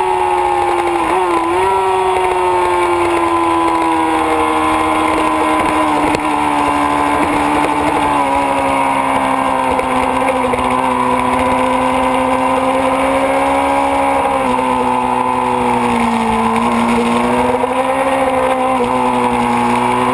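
Onboard sound of a Kawasaki ZX-6RR's inline-four engine running hard on track, its pitch easing slowly down as the bike leans into a long corner, with a brief dip in revs about a second and a half in and another shallow dip near the end.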